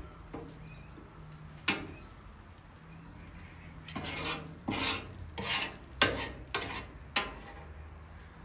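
Metal cooking utensils scraping and clacking on a Blackstone steel griddle top: one sharp clack about a second and a half in, then a run of about six quick scraping strokes in the second half.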